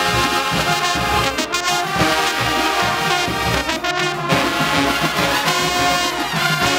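A brass-heavy marching band playing together: sousaphones, trumpets and saxophones carry the music, with a drum beat underneath.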